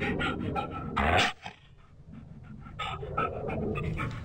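A dog panting in quick, irregular breaths, with one louder burst about a second in.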